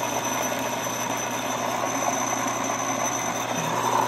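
Electric motor of a bench oil friction-wear test rig running steadily with an even hum.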